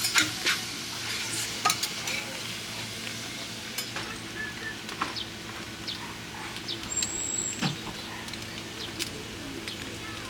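Organ meat sizzling on a large iron griddle, with scattered sharp clicks and scrapes of metal utensils on the plate over a faint steady hum.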